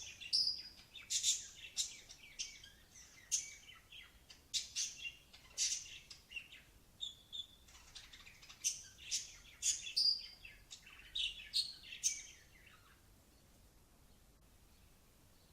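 Lovebirds chirping: a run of short, sharp, high chirps that stops about twelve seconds in.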